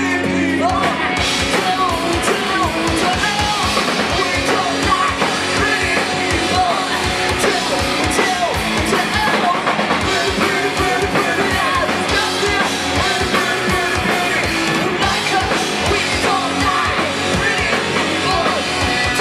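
Live rock band playing loudly: distorted electric guitars, bass and a drum kit at a fast beat, with vocals over the top.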